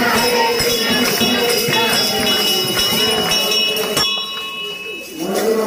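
Devotional aarti music: jingling bells and tambourine over a crowd's voices and rhythmic clapping. It breaks off after a last sharp stroke about four seconds in, and voices start again just before the end.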